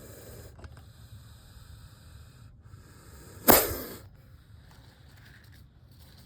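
A snake giving one short, sharp hiss about three and a half seconds in, loud at first and fading within half a second.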